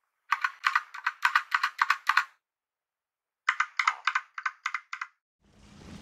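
Typing on a Logitech POP Keys wireless mechanical keyboard with round typewriter-style keycaps: a quick run of about a dozen key clacks, a pause of about a second, then a shorter run of about nine.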